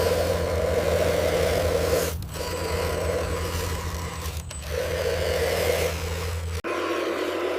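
A small motor running steadily under a scraping noise; the low hum cuts off suddenly near the end, leaving the scraping.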